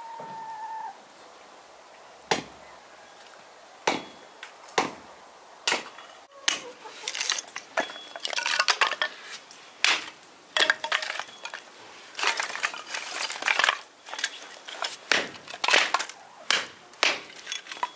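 Hatchet splitting thin kindling on a wooden chopping block: a few single sharp strikes, then from about six seconds in a quicker, uneven run of strikes with the wood cracking apart.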